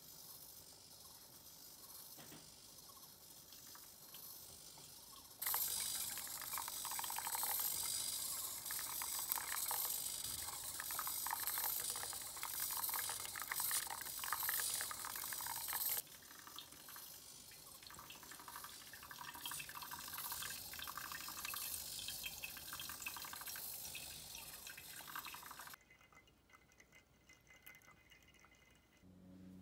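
A thin stream of hot water pours from a coffee robot's nozzle onto wet grounds in a pour-over dripper during the brew phases, a steady trickle with no pump tone. It grows much louder about five seconds in, drops back at about sixteen seconds and turns quieter again near the end.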